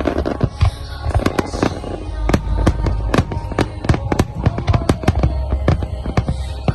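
Fireworks going off in quick succession, many sharp cracks and bangs over a low rumble, with music playing underneath.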